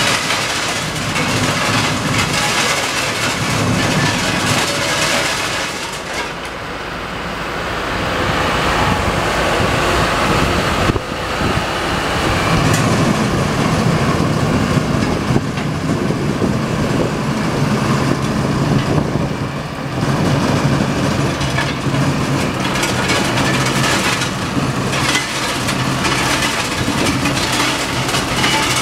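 Rail maintenance-of-way machine's diesel engine running as the machine rolls slowly along the track. It makes a steady, loud mechanical din over a low engine hum, easing off briefly about six seconds in, with one sharp knock about eleven seconds in.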